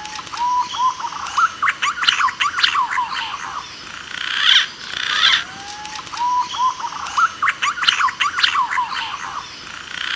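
Green pigeon (punai) song played as a hunting lure call: a phrase of short rising whistles running into a rapid series of falling, warbling whistled notes, heard twice.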